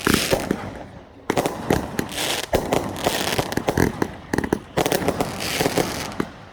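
Fireworks going off: dense rapid crackling and popping, broken by several heavier bangs, one at the start and others about a second in and later on.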